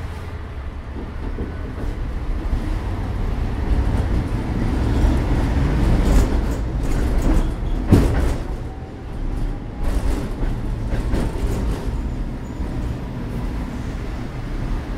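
Tatra T3 tram running along the track, heard from inside the car: a steady low rumble of wheels on rails, with rattling and clatter from the car. The rumble grows louder over the first half, and a sharp knock sounds about eight seconds in.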